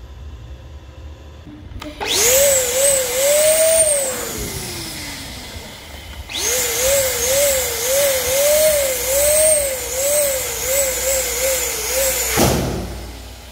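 Two-nozzle electric balloon pump running with a wavering whine. It runs briefly about two seconds in and winds down with a falling pitch, then runs again from about six seconds in, inflating a metallic purple latex balloon, and cuts off suddenly near the end.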